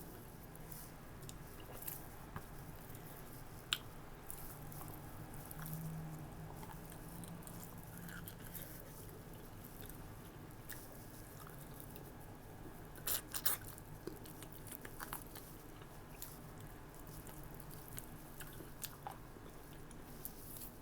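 Close-miked chewing and mouth sounds of a person eating, with scattered small clicks and a brief cluster of sharper clicks about two-thirds of the way through.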